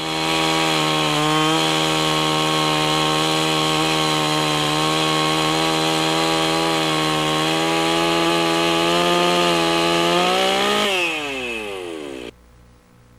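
Chainsaw running at full throttle while its bar cuts a notch into a log, holding a steady high pitch for about eleven seconds. Near the end the pitch falls as the throttle is released, then the sound cuts off suddenly.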